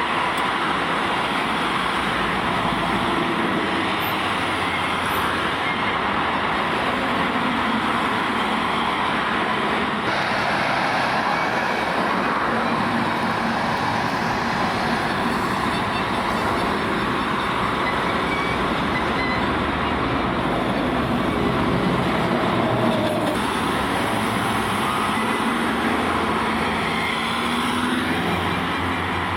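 Steady, dense road traffic noise that never lets up, with no single event standing out.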